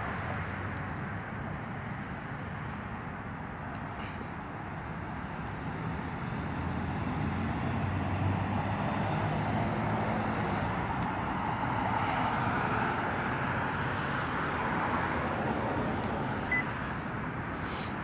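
Wind rumbling on the microphone, mixed with road traffic, swelling for several seconds in the middle as a gust or a passing vehicle comes through.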